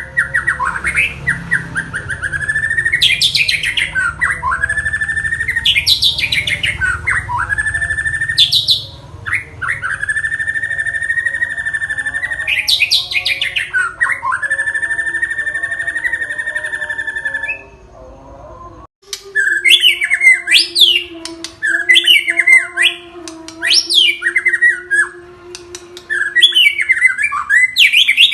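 White-rumped shama (murai batu) singing loudly: long phrases of fast, buzzy trilled notes broken by steep upward and downward whistled sweeps. After a short pause about two-thirds of the way through, it switches to a quick run of short, sharp sweeping notes.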